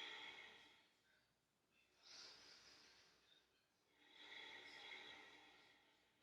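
Faint, slow breathing, with long breaths that each start about two and four seconds in and trail off gradually.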